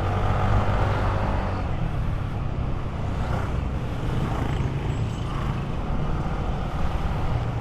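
Motor scooter engine running steadily while riding, with a steady low hum and road and traffic noise.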